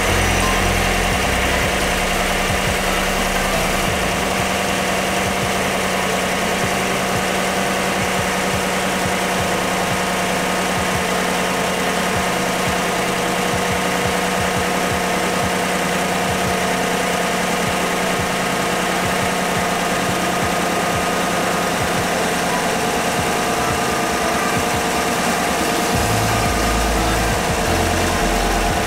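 GMC Denali truck's V8 engine idling steadily, heard from the open engine bay, running so the transmission fluid circulates through the cooler built into the newly fitted AC condenser while its line fittings are checked for leaks.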